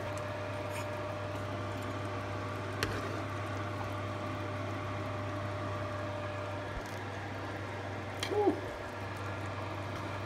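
A metal spoon stirring chunks of pork and sausage through a thick tomato gravy simmering low in a cast iron pot, over a steady low hum, with two light clinks of the spoon against the pot.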